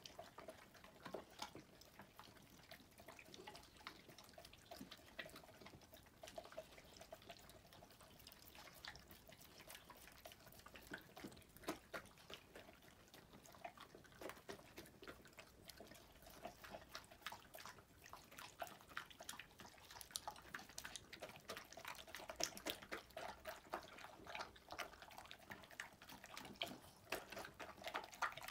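A toy poodle and a golden retriever eating from bowls: faint, irregular wet smacking, licking and chewing clicks throughout.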